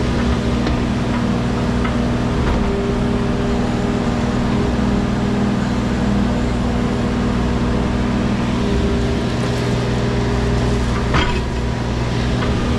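Wacker Neuson mini excavator's diesel engine running steadily at working speed, with a few light clicks and one sharper knock near the end.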